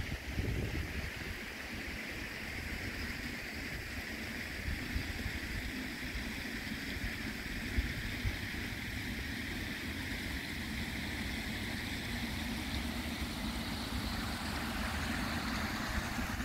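Wind buffeting the microphone as a fluttering low rumble, over a steady even hiss of outdoor background noise.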